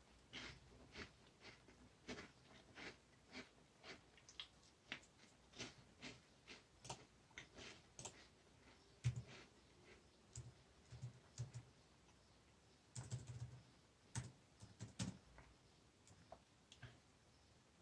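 Crunchy crackers being chewed: faint, crisp crunches at a steady pace of about two a second. From about halfway through, a few duller knocks and clicks join in.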